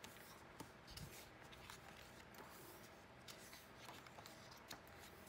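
Near silence, with the faint rustle and soft ticks of photo book pages being turned and smoothed by hand.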